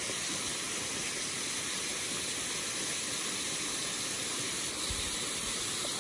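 Steady hiss of rushing water in a small rocky brook, an even, unbroken noise.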